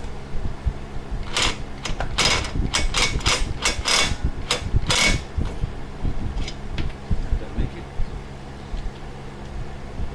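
About ten sharp hammer blows in quick, irregular succession, starting about a second and a half in and ending around five seconds, struck during a ball joint replacement on a Nissan 350Z's suspension. A fan hums steadily underneath.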